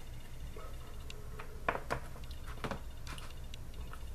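A few faint, short wet clicks and lip smacks from someone tasting vapor just exhaled from an e-cigarette, over a low steady room hum.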